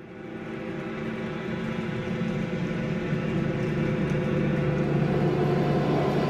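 Omnisphere 2 synth patch layering field-recorded light rain and distant thunder with a Juno 60 sub and noise, played as a held note: a sci-fi rain texture, a steady rain-like hiss under several sustained pitched tones. It swells in over the first two seconds or so, then holds steady.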